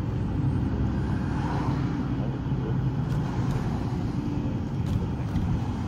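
Steady low rumble of a car in motion, road and engine noise without distinct events.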